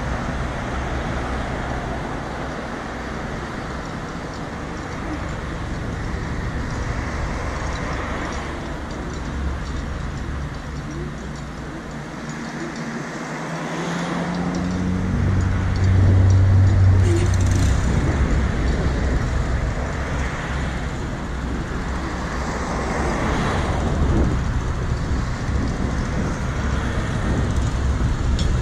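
Road traffic at an intersection: a steady low rumble of engines with cross traffic passing by in several swells, and one louder vehicle with a low engine drone passing about halfway.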